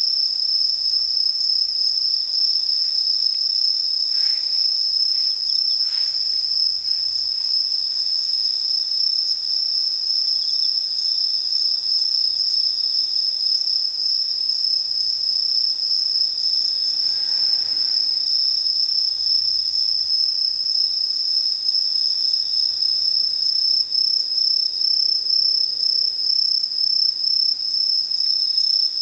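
Chorus of autumn singing insects: a steady, unbroken high-pitched trilling, with a fainter, slightly lower song that comes and goes.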